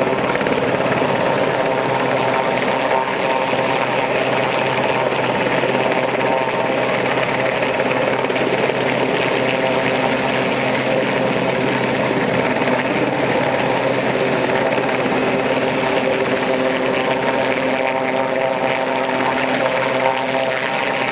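Royal Navy Westland Sea King search-and-rescue helicopter hovering low over the water, its rotors and turbine engines running with a steady, unbroken drone and whine.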